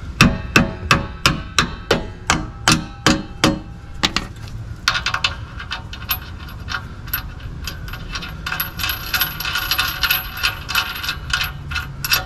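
A hammer knocks a bolt at the Land Cruiser's rear axle link mount about ten times, about three blows a second, each with a short metallic ring. After a pause it gives way to a run of small metallic clicks and scraping as the bolt is worked by hand.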